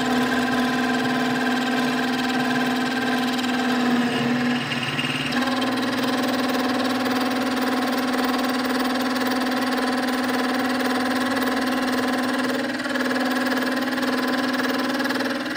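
Benchtop micro mill running and cutting a dovetail with a dovetail cutter, giving a steady whine with several overtones. The tone changes briefly about five seconds in.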